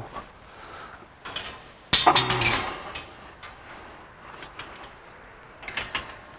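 Folding steel flat-bar shelves of a welded clothes-drying rack being lifted and unfolded: metal clicks and clanks, the loudest clatter about two seconds in, and a couple more clicks near the end.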